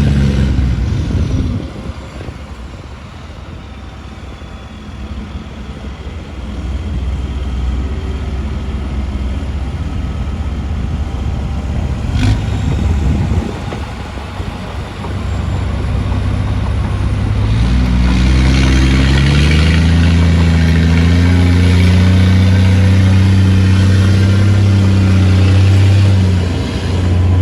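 Heavy diesel engine of an earthmoving machine running. It drops back a couple of seconds in and slowly builds again, with one sharp knock near the middle. Later it revs up, rising in pitch, and runs loud and steady at high revs, with a brief dip near the end.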